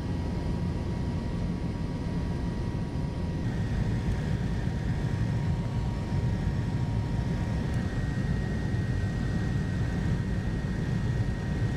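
Cabin noise of a single-engine Cessna Caravan turboprop in flight: a steady low drone with a constant high whine above it, shifting slightly about three and a half seconds in.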